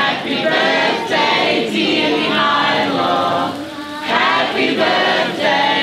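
A group of guests singing together, many voices of adults and children in unison, holding notes with a short break about four seconds in.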